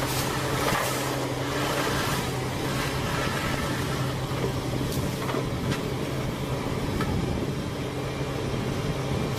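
Wood-processing machinery running with a steady low hum and scattered knocks and clatter.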